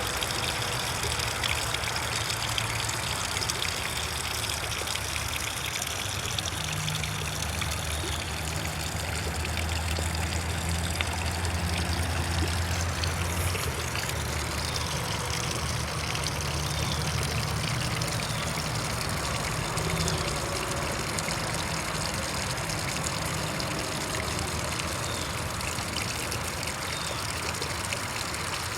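Water trickling over a steady low motor hum.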